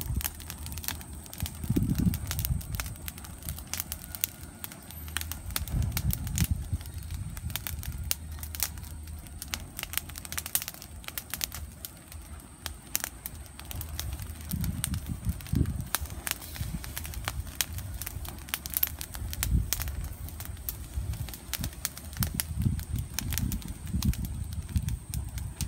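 Petrol-soaked grass burning on the ground, crackling with many small sharp pops over a low, uneven rumble.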